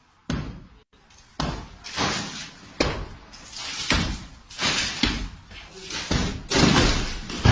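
A racket whacked against a door and walls in a string of sudden bangs and slams, about one every half second, mixed with shouting.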